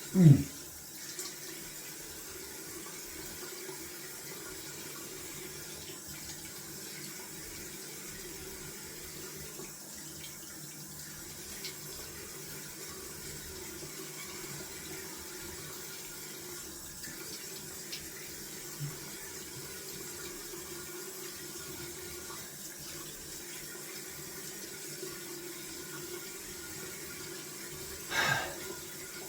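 Bathroom tap running steadily into a sink for a cold water rinse after a shave.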